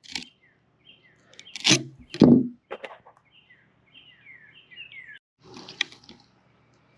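Knocks and scrapes of a fillet knife working a pompano on a plastic cooler lid, the two loudest about two seconds in, and a rasping slice near the end. A bird chirps in a run of short falling notes through the middle.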